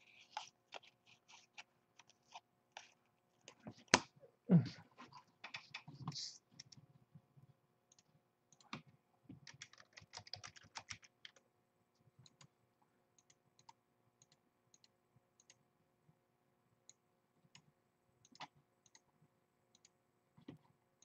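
Trading cards handled on a tabletop playmat: quick flicks and taps as cards are sorted and set down, with two louder knocks about four seconds in and brief rustling. Sparse light clicks follow through the second half.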